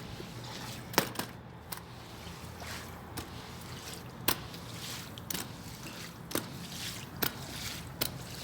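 Water from a garden hose running and trickling over paving, with a few sharp clicks or knocks now and then, the loudest about a second in and just past four seconds.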